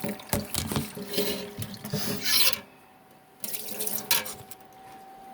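A bowl being rinsed and rubbed out at the sink: irregular rubbing strokes with some water sounds, pausing for about a second midway.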